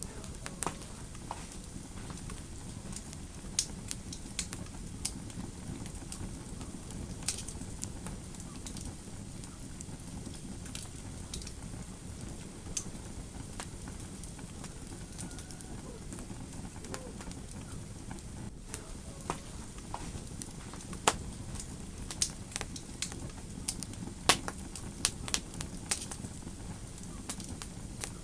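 Wood fire in a fireplace crackling: irregular sharp pops and snaps over a steady low rumble of the burning, with several louder pops in the second half.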